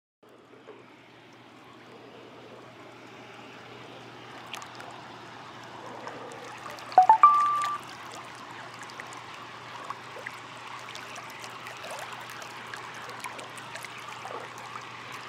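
Hot tub jets churning and bubbling the water, fading in over the first few seconds and then steady. About seven seconds in, a smartphone notification chime sounds: a few short notes stepping upward.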